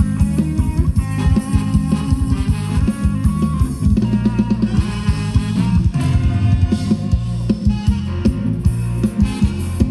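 Thai ramwong dance music from a live band: a busy drum kit with kick, snare and rimshots over a steady bass line and sustained keyboard or horn notes.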